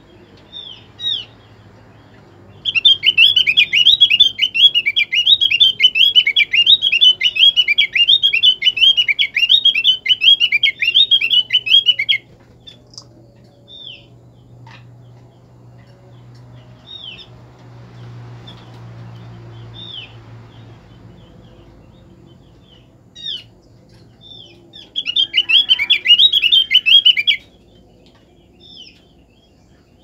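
Opior (opyor) bird, a female calling to a male, giving one long, loud, fast twittering song of about nine seconds, then single short chirps, then a second, shorter burst of twittering near the end.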